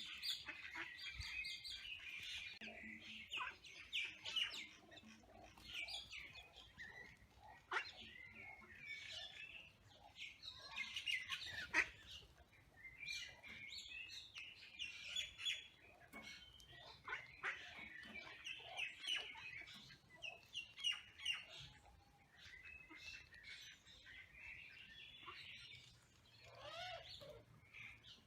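Small birds chirping and twittering continuously, in quick high chirps and short trills.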